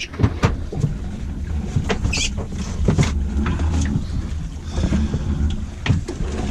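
Steady low rumble of a small boat on the water, with scattered sharp knocks and rattles and a brief squeak as a prawn trap line is hauled in by hand over the gunwale.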